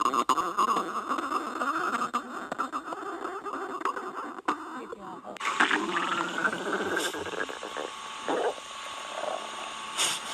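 Stomach growling: a long, unbroken gurgle with a whining tone that rises and then holds about halfway through, when the sound turns brighter and hissier.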